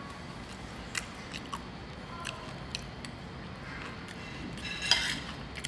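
Mouth chewing crispy fried shredded-beef flakes: scattered sharp crunches and clicks, with a louder cluster of them near the end.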